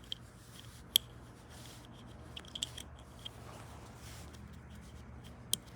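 Light metallic clicks of a new rear brake pad and its spring being handled and fitted together: a sharp click about a second in, a few more around the middle, and another near the end.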